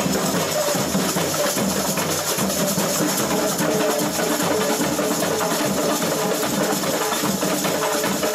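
Live samba music: a samba band's drums and percussion playing a steady, unbroken groove.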